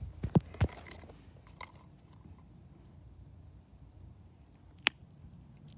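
Faint handling noises: a few soft thumps in the first second, then a single sharp click just before the five-second mark.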